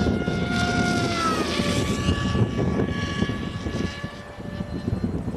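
RC AXN Floater's electric motor and propeller whining at a steady pitch, dropping in pitch about a second and a half in and holding lower, with strong wind buffeting the microphone in a low, gusty rumble.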